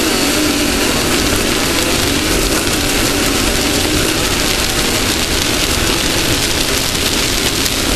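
Off-road race car running at speed: a steady engine drone that wavers slightly in pitch, under a loud, continuous rush of wind and terrain noise.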